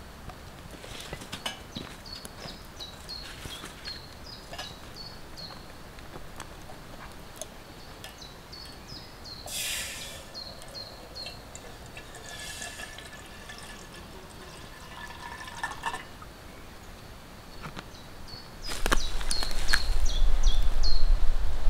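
Water poured into a small metal kettle sitting on a pocket wood stove, about halfway in, the pitch of the stream rising as the kettle fills, with the twig fire crackling in the stove. Near the end a louder low rumble sets in.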